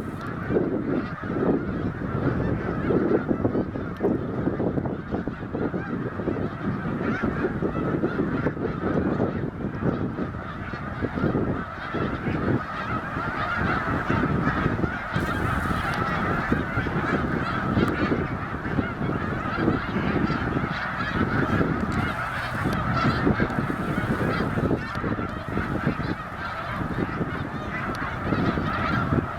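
A large flock of snow geese calling at once, a dense, unbroken din of honking and chattering from hundreds of birds.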